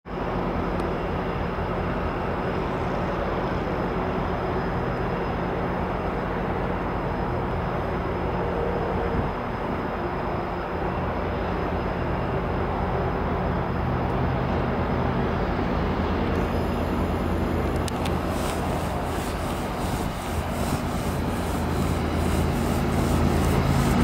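CN diesel freight locomotive approaching with its engine running, a steady low rumble with train noise. From about three-quarters through, a regular ticking joins in, about two or three ticks a second.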